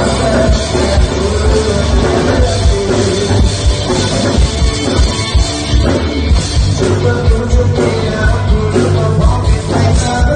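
A rock-style song with singing, played loud through a mini stage PA sound system under test, with heavy bass.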